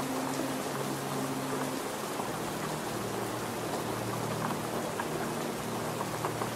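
Heavy rain falling steadily, a constant even hiss of rain hitting the ground and foliage. Low held tones run underneath and step to a new pitch every second or so.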